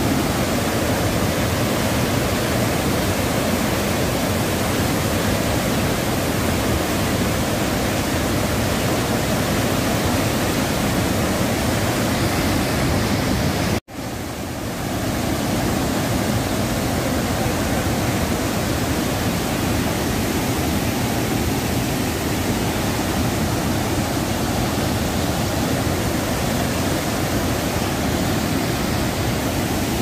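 Chitrakote Falls on the Indravati River, a wide waterfall running brown and in heavy flow, giving a steady deep rush of falling water. About halfway through the sound cuts out abruptly for a moment and fades back in.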